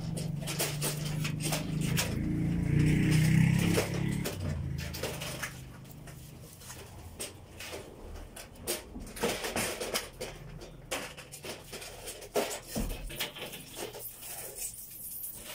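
A low steady hum that swells and then fades out about five seconds in, followed by scattered sharp clicks and knocks, like hard objects being handled.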